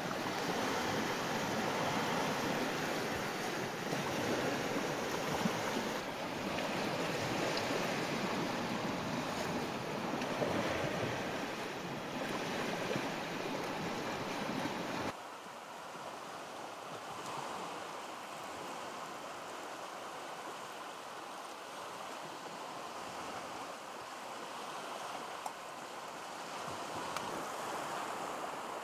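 Baltic Sea waves washing onto a sandy shore: a steady rush with some wind. About halfway through it drops suddenly and becomes quieter and thinner.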